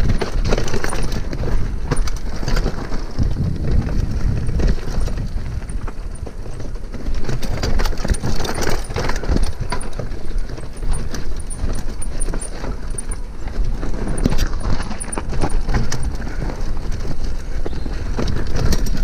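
Mountain bike rattling and clattering as it rides fast down a rough, rooty dirt trail, with many short knocks over a constant low rumble of wind buffeting the camera's microphone.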